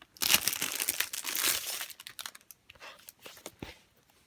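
Plastic packaging crinkling as it is handled and opened for about two seconds, followed by a few light clicks and taps.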